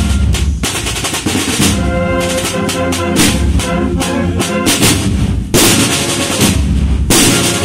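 Cornet-and-drum band playing a processional march: snare drums rolling and beating under the cornets' melody, with a deep bass drum below. About five and a half seconds in the cornets stop and only the drums play on.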